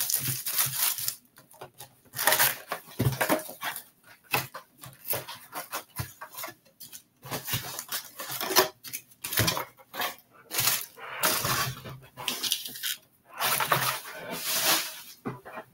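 A trading-card hobby box being unwrapped and opened by hand, its wrapped card packs pulled out and stacked: irregular crinkling, rustling and scraping of plastic and cardboard in short bursts.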